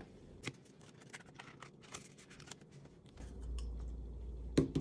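Canadian polymer banknotes being handled and tucked into a binder's cash envelope, with faint crinkling and light clicks. A low steady hum comes in about three seconds in, and two sharp clicks sound near the end.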